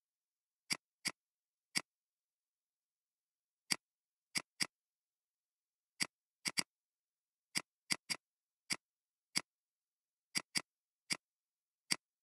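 Sharp, isolated clicks of a computer mouse and keyboard, about eighteen at uneven intervals, some in quick pairs, with dead silence between them.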